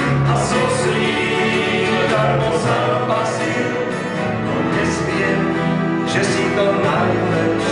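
A small gospel band playing and singing: several men's voices in harmony over acoustic guitars, electric bass guitar and keyboard.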